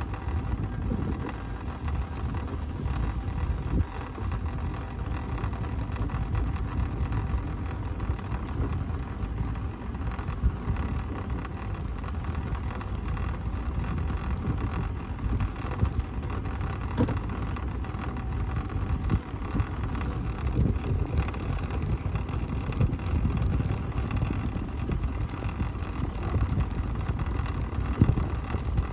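Mobility scooter driving along a paved path: a steady rumble of the wheels and drive motor with a faint steady whine and small rattles.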